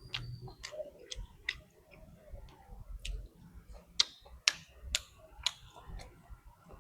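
Close-miked eating: sharp wet clicks and smacks of a mouth chewing, coming irregularly and spaced about half a second apart in the latter half.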